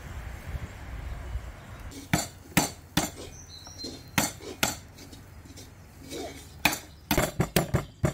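Walnuts in the shell being cracked with a wooden pestle on a wooden cutting board: sharp knocks and shell cracks. They start about two seconds in, a few at a time, and come in a quick run of strikes near the end.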